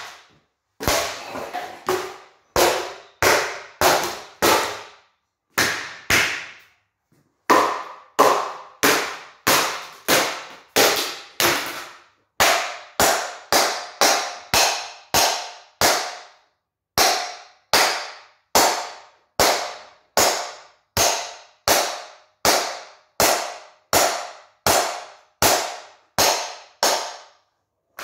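Repeated hard blows of a metal golf club smashing a plastic ceiling fan on a concrete floor, about one strike a second, each a sharp crack with a short ring; a brief pause about six seconds in, then the strikes come a little faster.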